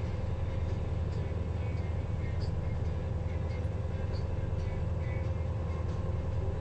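Steady low drone of the river motor ship ST-308's diesel engine running at a constant speed.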